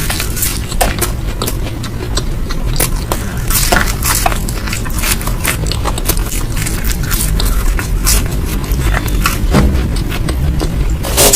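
Close-miked chewing and eating: irregular wet clicks, crackles and scrapes of food being bitten and chewed, over a steady low hum.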